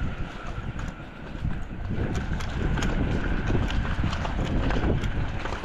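Wind buffeting the microphone while riding along a street, with a running patter of small irregular clicks and rattles.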